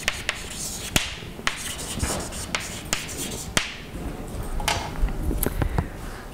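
Writing on a board: irregular sharp taps with short scratching strokes between them.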